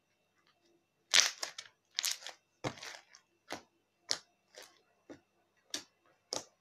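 Blue floam slime full of foam beads being squeezed and pressed by hand, giving a series of about ten sharp crunches and pops roughly every half second, starting about a second in.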